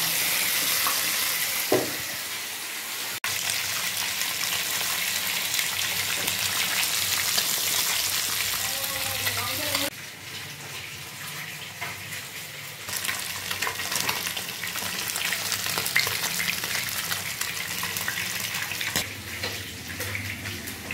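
Pieces of marinated fish frying in hot oil in a pan, a steady sizzle with scattered small crackles. The sizzle drops suddenly in level about ten seconds in.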